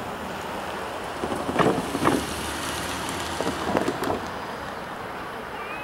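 Steady wind noise on the microphone, with two louder crackling gusts about a second and a half in and again around four seconds in.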